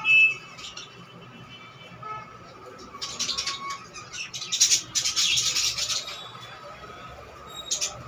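Budgerigars chirping, then breaking into a burst of scratchy, rapid warbling chatter about three seconds in that lasts a few seconds.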